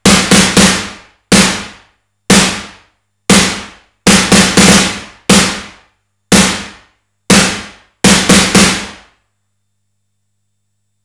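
Simmons SDS7 hybrid analog/digital drum module playing a snare sound, with a short reverb. It is struck about once a second, with quick groups of three near the start, about four seconds in and about eight seconds in. Each hit is a sharp, noisy crack over a short low-pitched body that dies away quickly. The hits stop about nine seconds in.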